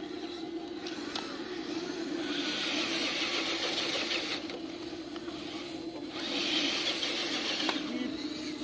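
Electric motor and geared drivetrain of an RC rock crawler whining steadily as it climbs a steep dirt slope, with two louder spells of about two seconds each as it is driven harder.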